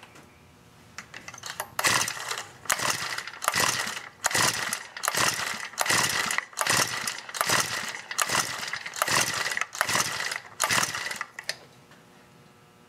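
Honda GX31 mini four-stroke engine cranked by its recoil starter about a dozen times in a row, starting about two seconds in: an even string of rasping pulls, roughly one every second, the engine spinning over without firing. This is the cranking for a compression test, throttle wide open, kill switch off and a compression gauge in the spark-plug hole.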